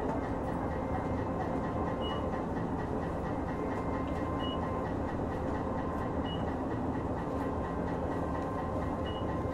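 Hankai Tramway Type 351 tram, car Mo 354, running, heard from on board: the steady hum and rumble of its nose-suspended traction motors and gearing, with wheels on the rails. Four short high chirps come every two or three seconds.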